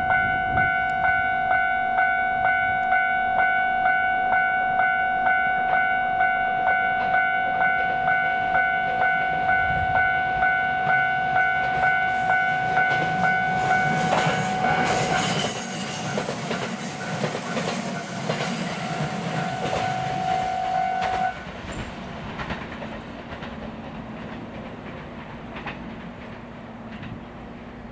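Level-crossing warning bell ringing in an even, repeating ding, about one and a half strokes a second, while a JR West 227 series three-car electric train approaches. Past the middle the train's wheels clatter over the rails as it crosses. The bell stops abruptly about three quarters of the way through, and the train's running sound fades as it moves away.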